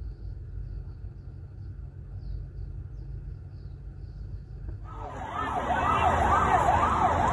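Police vehicle siren that starts suddenly about five seconds in, wailing up and down about twice a second over low street rumble. Before it only a faint low rumble.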